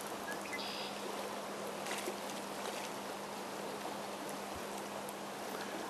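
Steady rushing of a river's current flowing past a wading angler, with a faint even hum beneath it.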